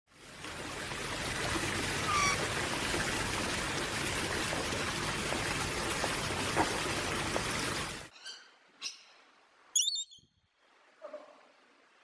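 A steady, loud hiss with a faint bird chirp in it, which cuts off sharply about eight seconds in. After it, a parrot gives four short squawks and chirps, the third the loudest.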